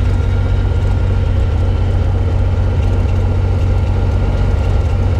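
Cessna 180's six-cylinder Continental O-470 engine and propeller running steadily, a loud even drone heard from inside the cabin.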